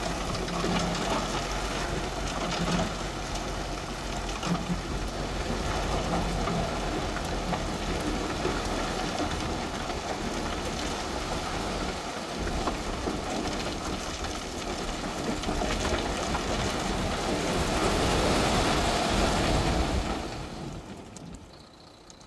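JCB earth-moving machine's diesel engine running under load, with a dense, gritty noise over it from the earth being worked. The sound fades down near the end.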